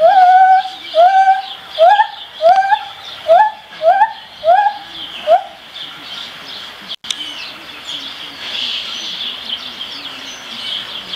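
Gibbon calling: a series of about ten loud, rising whooping hoots, roughly two a second, that stops about five seconds in.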